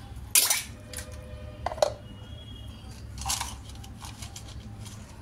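A few sharp metallic clinks: a loud one about half a second in, another near two seconds that rings briefly, and a softer one around three seconds, over a low steady hum.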